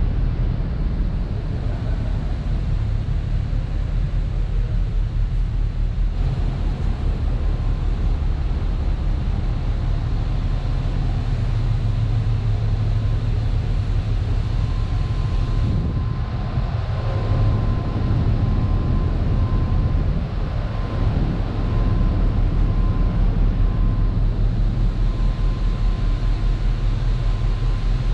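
Steady low rumble of a cruise ship's machinery, pulsing rapidly, with a faint steady high tone joining about halfway through.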